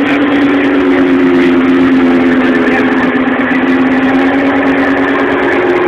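Sports car engine idling steadily at a constant pitch, heard close to the exhaust.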